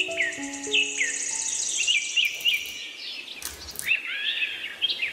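Birds chirping, short falling chirps repeated over and over, with a fast high insect-like trill, as the last notes of a soft melody fade out about a second in. A few faint clicks come near the end.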